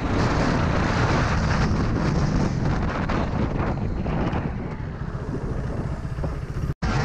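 Motorcycle engine running at speed under heavy wind noise on the microphone. The sound drops out for an instant near the end.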